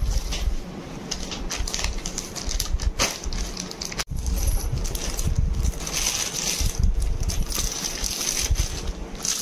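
Crinkling and rustling of plastic packaging and silk sarees as they are unpacked and handled, with low handling rumble on the phone microphone. The sound cuts out briefly about four seconds in.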